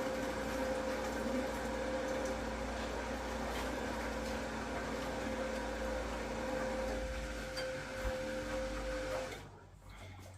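Steady machine hum with a constant tone, which cuts off suddenly about nine seconds in.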